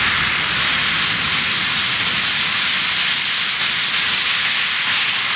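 JetCat P100 model jet turbine, of about 10 kg thrust, running at high power for a takeoff roll: a loud, steady jet hiss.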